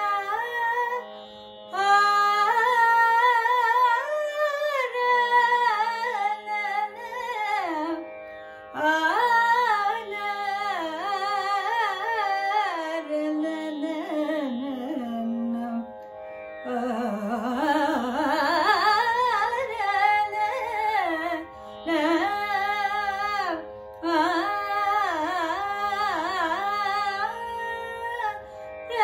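A woman singing solo Carnatic vocal, her voice sweeping and wavering in pitch through long phrases with short pauses between them, over a steady drone.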